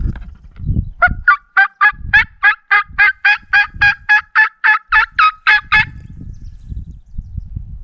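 A run of about eighteen hen turkey yelps, evenly spaced at roughly three and a half a second and lasting about five seconds, blown on a turkey hunter's mouth call. There is low rustling before and after the calls.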